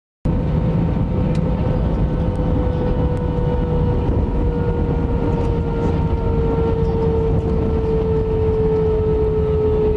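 Airbus A320's engines heard inside the cabin as the airliner rolls on the ground: a steady low rumble under a whining tone that slowly sinks in pitch. The sound cuts in abruptly just after the start.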